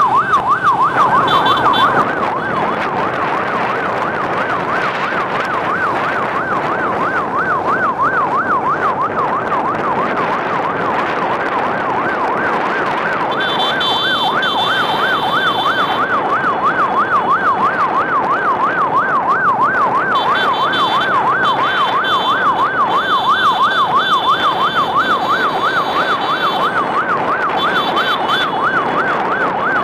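An electronic siren yelping in a rapid, continuous rise and fall over the running of many motorcycle engines. A higher steady tone comes and goes several times from about the middle on.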